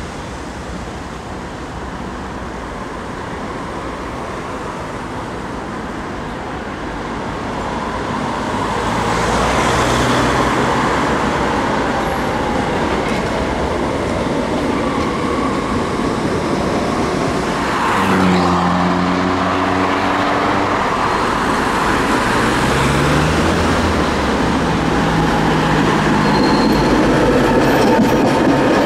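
Electric street trams running on the street tracks amid road traffic. The steady rolling rumble grows louder toward the end as a tram passes close by, with low motor hums that step up in pitch.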